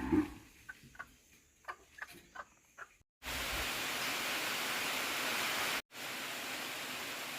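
A short call and a few quick clucks from chickens, then, starting abruptly about three seconds in, a steady rushing noise that breaks off briefly near six seconds and resumes a little quieter.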